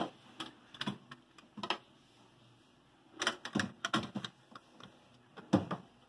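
Sharp plastic clicks and knocks as a replacement refrigerator thermostat is handled and pressed into its plastic housing. The clicks are scattered, with a cluster a little past three seconds and the loudest snap near the end.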